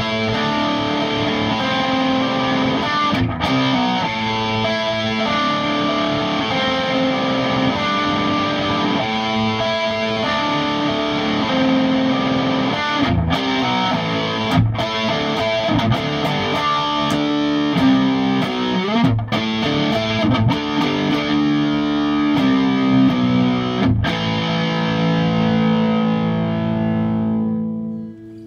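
Grover Jackson Dinky electric guitar played through an amplifier: a stream of melodic runs and riffs with a few brief stops, ending on a held note that fades out near the end.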